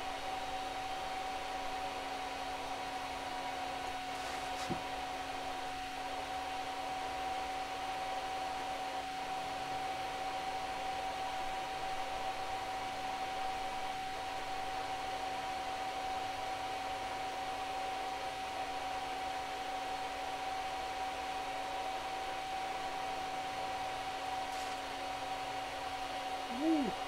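Steady whir of the laser engraver's cooling fans, with a constant high-pitched tone over it. A faint click about five seconds in and a brief voice sound near the end.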